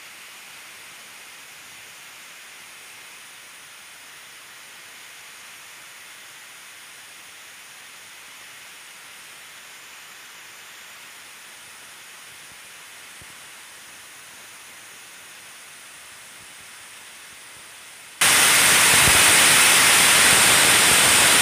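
Steady hiss of background noise with no distinct events. About eighteen seconds in, a much louder burst of harsh static cuts in abruptly.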